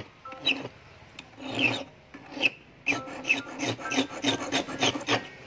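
Hand file rasping back and forth across a steel wire held on a wooden block, shaping a handmade fish hook. A few separate strokes at first, then quicker strokes at about three a second from about three seconds in.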